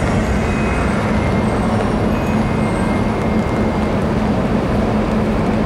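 Car ferry Tokiwa Maru's engines and thrusters running as the ship pulls away from its berth: a steady, even drone with a constant low hum.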